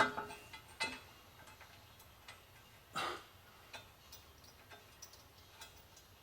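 Scattered light metallic clicks and taps, with a brief louder scrape about three seconds in: hand tools and a bolt being worked while an exhaust manifold bolt is started.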